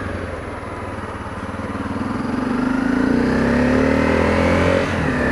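Honda CRF250L's single-cylinder four-stroke engine accelerating through its stock exhaust. The pitch rises steadily from about two seconds in, then drops briefly near the end as the bike shifts up a gear.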